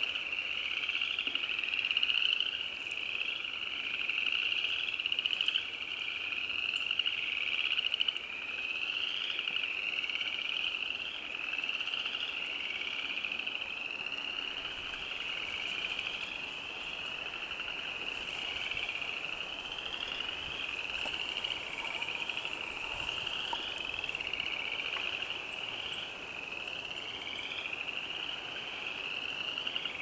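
A chorus of many frogs calling at once: overlapping rising trills repeated without a break.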